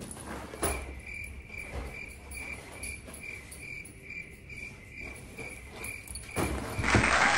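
A cricket chirping in a steady, even rhythm at one high pitch, about four chirps a second. A loud rushing noise comes in near the end.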